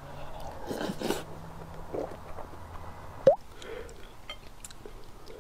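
Quiet eating sounds: chewing a big mouthful of tomato-and-egg rice, with a few soft clicks and scrapes of a spoon against a dish.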